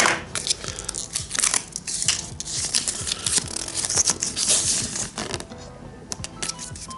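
Plastic blister pack and its cardboard backing being torn and crinkled open, in rapid scratchy rustles that die down about five and a half seconds in. Light background music underneath.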